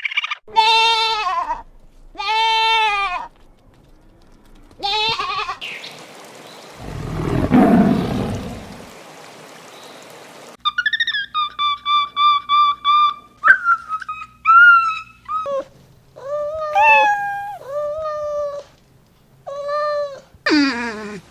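A string of different animal calls. It opens with two drawn-out, arching pitched calls, followed by a rough low-pitched call around the middle, then a fast run of short pitched cries and several longer ones.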